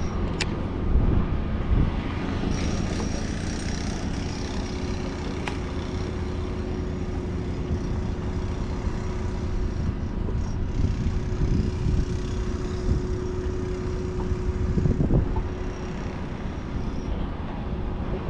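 Steady low rumble of wind on the microphone and water lapping against a small aluminium boat, with a faint steady hum through most of it.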